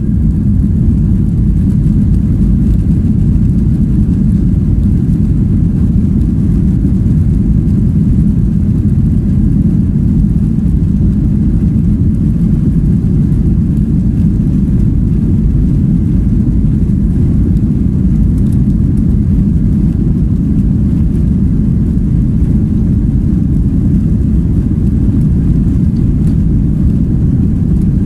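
Boeing 737 airliner's jet engines running as the plane moves on the ground, heard from inside the cabin as a loud, steady low rumble.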